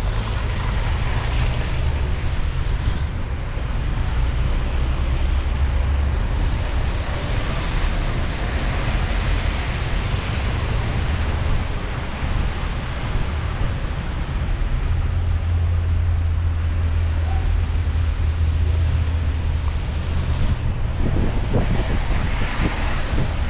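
Car driving on a rain-wet city street: a steady hiss of tyres on wet pavement over a low road and engine rumble.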